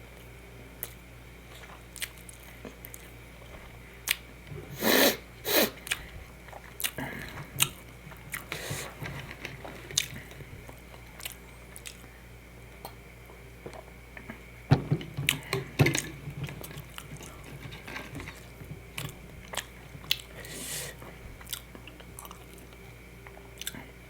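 Close-miked eating: a person biting and chewing food with wet mouth clicks, broken by louder crunchy bites about five seconds in, around fifteen seconds in, and again near twenty-one seconds.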